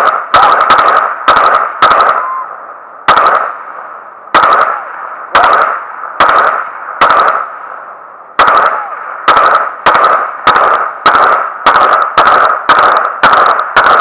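AR-15 rifle firing about twenty single semi-automatic shots, each sharp crack followed by an echoing tail. A quick string of shots opens the sequence, then they come about one a second, quickening to nearly two a second near the end.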